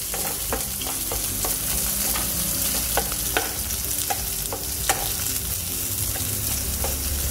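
Diced potatoes and onions sizzling in hot oil in a metal kadai, with a wooden spatula stirring them and knocking and scraping against the pan at irregular moments.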